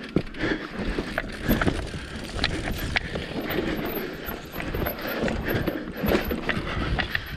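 Mountain bike riding hard down a rough, rooty dirt trail: tyres running over dirt and roots under a continuous clatter of chain and frame, broken by many sharp knocks as the bike hits bumps.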